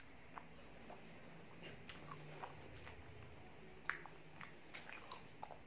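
Close-miked chewing and wet mouth sounds of a person eating soft dahi bhalla, lentil dumplings in yogurt, with scattered small clicks and smacks; the sharpest comes about four seconds in.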